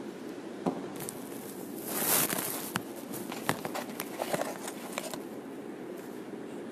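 Handling noise from a phone being used: scattered taps and clicks, with a brief rustle about two seconds in, over a steady low room hum.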